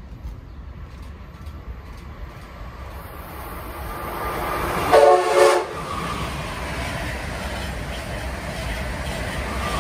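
Amtrak Acela high-speed electric train approaching and passing at speed. It sounds one short horn blast about five seconds in, the loudest moment, followed by the steady rush of the cars going by.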